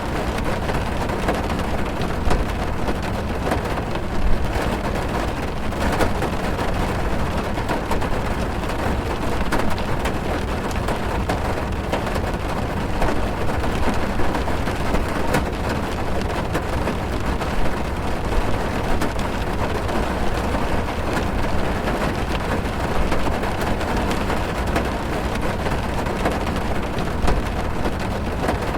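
Heavy rain falling on a car's roof and windows, heard from inside the car: a steady dense patter with many scattered sharper drop strikes over a low rumble.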